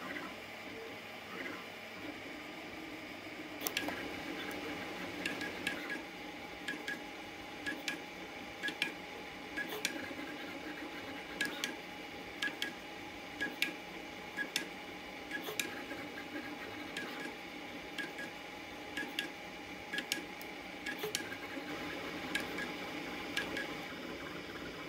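Artillery Genius Pro FDM 3D printer printing at 90 mm/s: its stepper motors hum and whine in shifting tones over a steady fan hiss. From about four seconds in, sharp ticks come roughly once a second as the print head moves.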